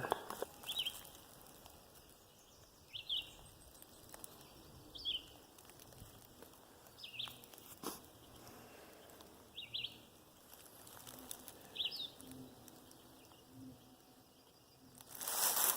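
A songbird singing a short, high, slurred phrase about every two seconds, six times, faint over a quiet background. One sharp click about halfway through.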